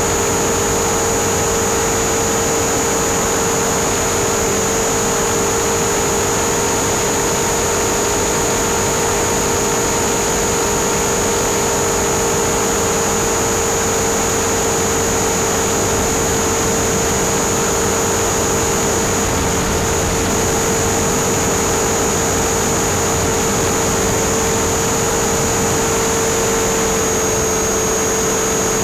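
RC helicopter's motor and rotors running at a steady pitch, heard up close through its onboard camera, a constant whine with a high-pitched tone above it.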